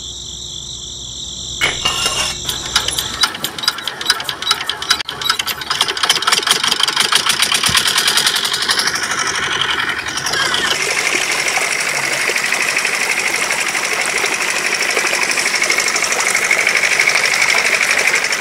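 Small model engine running with a rapid, even chugging as it drives belt-driven water pumps; about halfway through a steady gush of water joins in as the pumps start spouting water.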